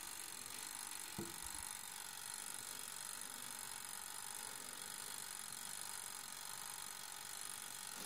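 Faint, steady ticking of a toaster oven's mechanical timer, with a light knock about a second in.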